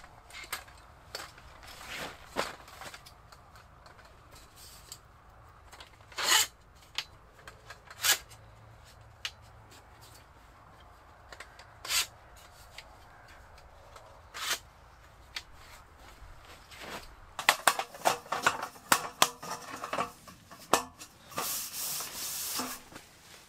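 Folding camp table being set up: the metal frame gives scattered clicks and knocks as its legs are opened. Later comes a quick run of rattling clicks from the wooden slat top, then a rubbing scrape near the end as hands smooth it flat.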